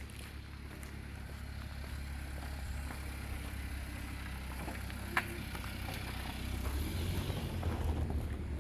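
A motor vehicle's engine running, a steady low rumble that grows louder about seven seconds in. A single sharp click about five seconds in.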